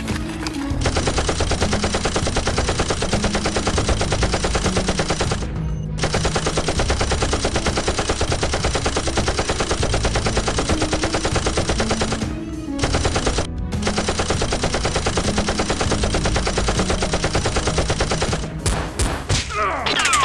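Rapid automatic gunfire, a fast steady stream of machine-gun shots that breaks off briefly a few times and stops near the end.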